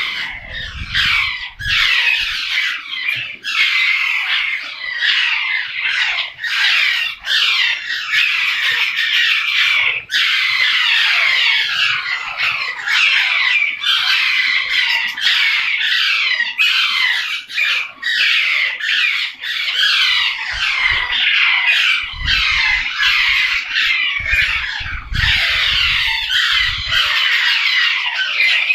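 Many parrots screeching and chattering at once, a dense, unbroken din of overlapping shrill calls.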